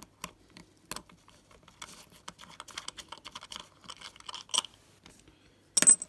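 Small clicks and scrapes of a Casio 51QR-19 watch's stainless steel case back being worked off by hand, with the metal bracelet shifting. Near the end comes a single sharp clack as the loose case back is set down.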